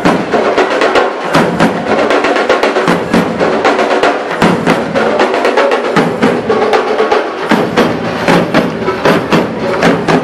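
Live percussion ensemble playing a fast, dense drum rhythm, many drums struck together, with some sustained pitched notes underneath.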